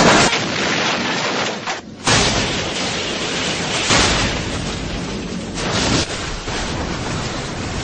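Car crash sounds: loud noisy impacts and crashing with sudden hits, changing abruptly about every two seconds.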